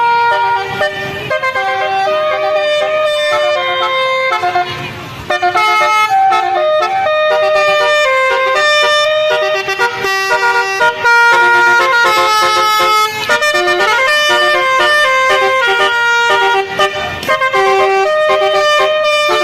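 Telolet basuri musical vehicle horn playing a fast melody of steady held notes, one after another, with a brief break about five seconds in.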